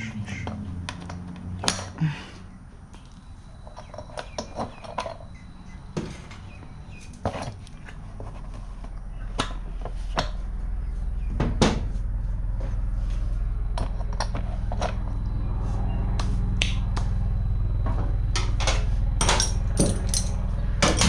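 Scattered metal clicks and taps of hand work, putting cotter pins back into the mini bike's chain cover. A steady low hum comes in about eight seconds in, and the clicks come thick and fast near the end.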